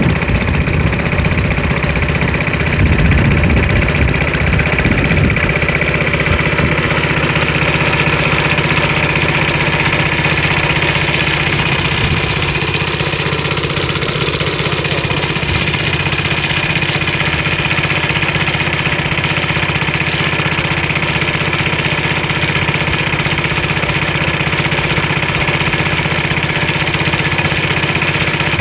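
Small fishing boat's engine running steadily at an even pace.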